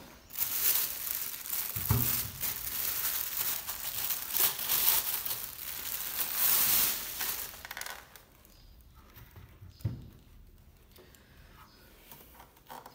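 Thin clear plastic bag crinkling and rustling as it is pulled off a portable speaker, for about eight seconds. After that, quieter handling with a low bump about ten seconds in.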